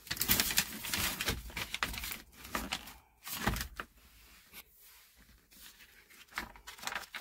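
Paper rustling as small booklets are handled and their pages flipped. There is a dense run of rustling over the first couple of seconds, a short burst in the middle, and a few softer rustles near the end.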